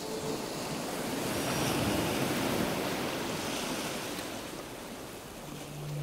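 Sea surf washing up the beach, a broad rush that swells and then eases. Background music fades out just after the start and comes back near the end.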